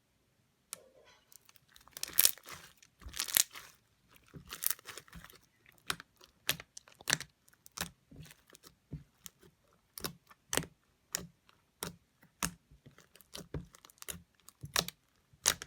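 Crunchy slime with plastic beads mixed in being squeezed and pressed by hand, giving crackling crunches. There is a dense run of them over the first few seconds, then sharp crunchy pops about twice a second.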